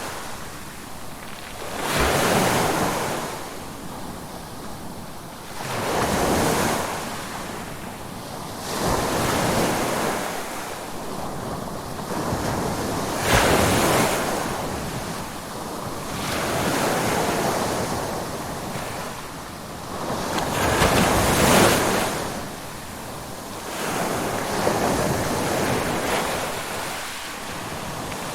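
Ocean waves breaking and washing back, the rush of surf swelling and fading about every three to four seconds.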